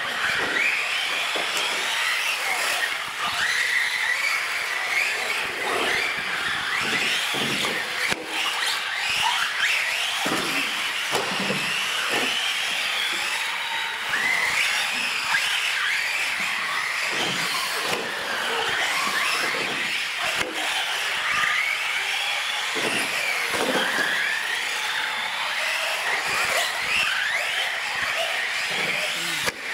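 Several radio-controlled UTV trucks racing on a smooth concrete floor: small electric motors whining, their pitch rising and falling again and again with the throttle, mixed with tyre squeals.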